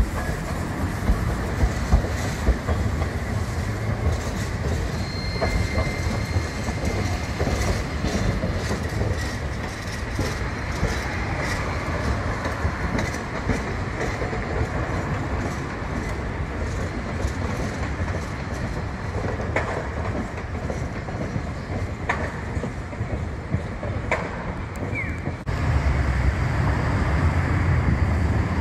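Kagoshima City Tram low-floor streetcar running on street track, its wheels clicking over the rails, with a brief high squeal about five seconds in. About 25 seconds in the sound changes suddenly to a steadier, deeper traffic rumble.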